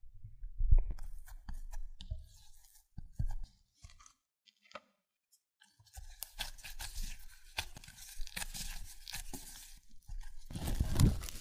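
A spatula stirring flour into butter in a glass bowl, with soft scrapes and low thuds. From about six seconds in, hands in disposable plastic gloves knead and squash mooncake crust dough with matcha powder in a glass bowl, a dense crackly rustle that grows loudest near the end.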